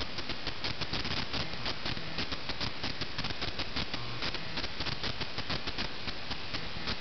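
Crackling and rustling of wood-shaving bedding as a hamster moves through it: a dense, irregular stream of small clicks at an even level.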